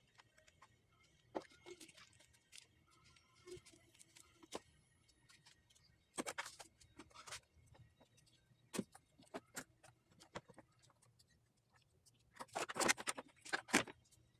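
Gloved hands handling new spark plug wires around the ignition coils: scattered small clicks, taps and rustles. There are louder bursts of handling about six seconds in and again near the end.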